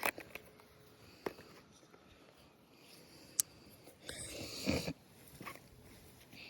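Faint handling of an opened plastic bait package: a few light clicks, a sharper one about three and a half seconds in, and a short rustle about four seconds in.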